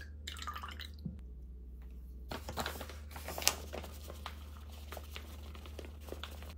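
A packet of Korean frying mix crinkling as it is picked up and tipped to pour the powder out, with a run of crackles and one sharp crackle partway. A brief rustle comes just before.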